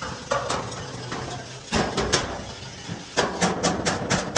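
Hammer blows on a dented truck fuel tank as it is beaten back into shape: a few spaced strikes, then from about three seconds in a quick run of about four blows a second.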